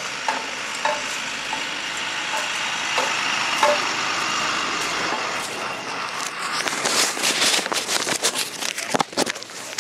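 Snowstorm street ambience: a steady hiss with scattered crackles. It turns busier and crunchier over the last few seconds.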